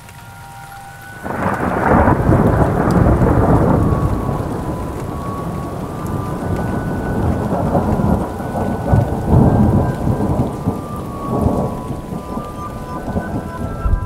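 Thunder over steady rain: a loud crack about a second in rolls on for a few seconds, with further rumbles swelling later.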